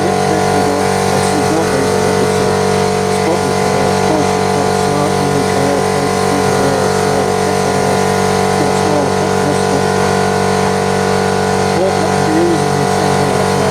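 Electric air compressor running steadily with a constant, even hum.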